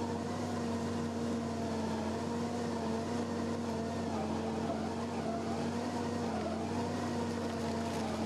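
Engine of a stump grinding machine running steadily under load, its pitch dipping slightly now and then.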